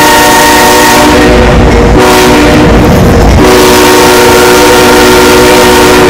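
CSX freight locomotive's air horn sounding its multi-note chord in blasts, the last one long and steady from about three and a half seconds in, with the train running past underneath. The audio is boosted to the point of distortion.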